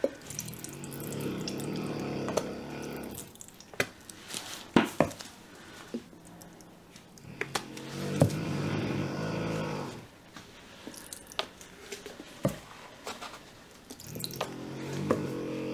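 Acrylic paint squirting out of plastic squeeze bottles onto a canvas, buzzing and sputtering in three spells as the bottles are squeezed hard, with a few sharp clicks and knocks of the bottles between.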